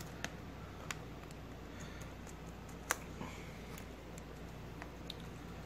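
A few scattered small plastic clicks from a Chromebook keycap being pried and worked loose from its hooks with a small tool, the sharpest about three seconds in.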